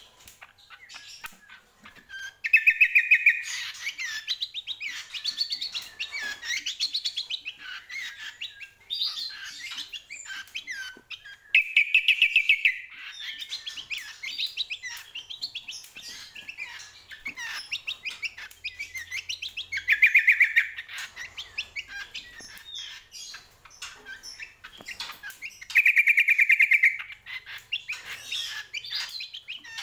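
A cucak kombo singing in full song: a continuous run of varied high chirps and chattering phrases, broken four times by a loud, fast trill lasting about a second.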